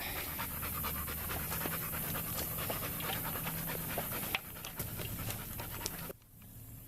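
A dog panting fast and steadily; the sound falls away abruptly about six seconds in.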